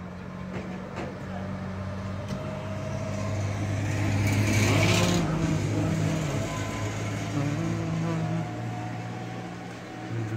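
A car passing on the street: its engine and tyre noise swell to a peak about halfway through and then fade, over a steady low hum.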